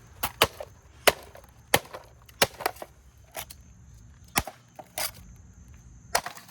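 A Roomba robot vacuum being beaten to pieces: about ten sharp, irregular blows on its body.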